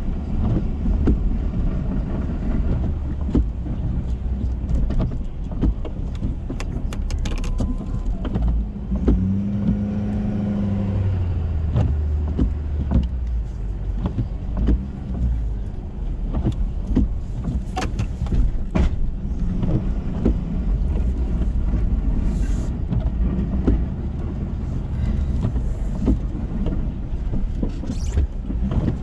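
Ford F-350 plow truck's engine running steadily while plowing and backing up, with scattered knocks and clunks throughout. A brief pitched hum comes in about nine seconds in.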